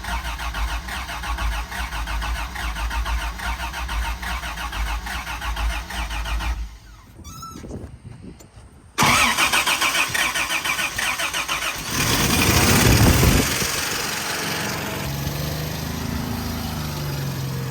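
Toyota FJ60 Land Cruiser's 2F inline-six being cranked over by a newly fitted starter motor, with a fast rhythmic churning. After a pause it cranks again, starts about twelve seconds in with a brief louder spell, and settles into a steady idle.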